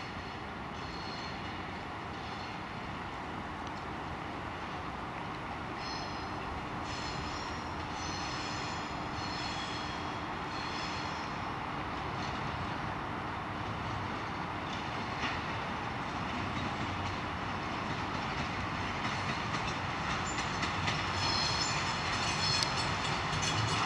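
2TE116U twin-section diesel locomotive approaching, its V16 diesel engines running steadily and growing slowly louder. High-pitched wheel squeal comes and goes, and near the end there are a few sharp knocks of wheels over rail joints.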